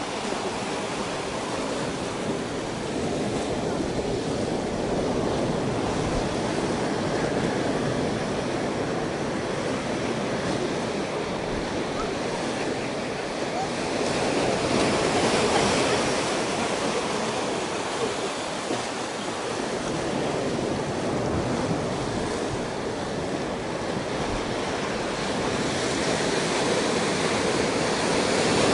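Ocean surf washing up a beach over sand and rocks: a steady rush of breaking waves that swells louder about halfway through and again near the end.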